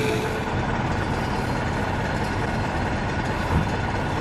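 A heavy vehicle engine idling with a steady low rumble, with a short knock about three and a half seconds in.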